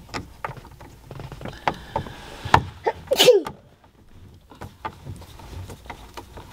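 Scattered light clicks and knocks from a screw being driven by hand into the mount of a flip-down roof monitor. About three seconds in, a person sneezes, the loudest sound here.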